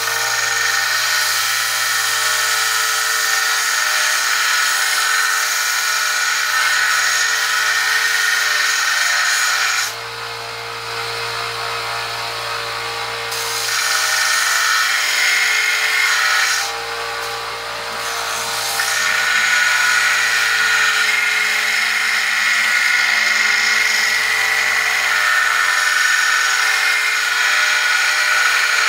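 Small bench belt sander running on a coarse belt, grinding a steel drawknife blade: a steady motor hum under a harsh grinding hiss. The grinding eases off twice for a few seconds, about a third of the way in and again just past the middle.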